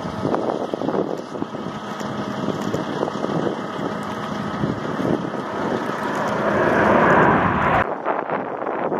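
Jet noise from a formation of Blue Angels F/A-18 Super Hornets flying overhead, a rumbling rush that swells to its loudest about seven seconds in and then drops away suddenly near the end.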